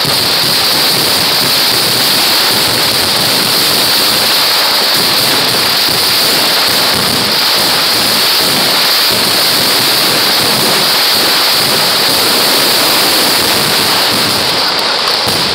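Kerala temple fireworks (vedikettu) going off in a dense, unbroken barrage, the bangs and crackling packed so close together that they merge into one loud, steady roar.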